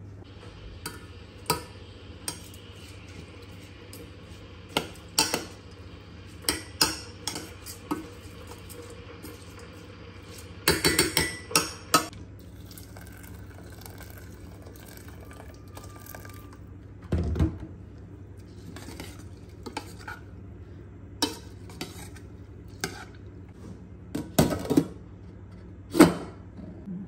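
A metal spoon knocking and clinking against a stainless steel pot as rice and dill are stirred, with water poured into the pot partway through. Near the end a glass pot lid is set on with a sharp clink. A steady low hum runs underneath.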